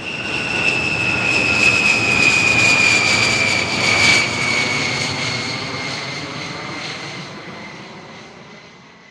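Fighter jet flying past: a high engine whine that slowly falls in pitch over a broad rushing noise. It grows to its loudest about four seconds in, then fades away.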